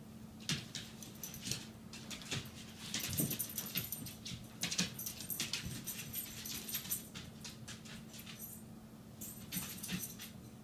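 Puppy at play with its toys: irregular clicks and light rattles of claws and toys on the floor, coming in quick clusters.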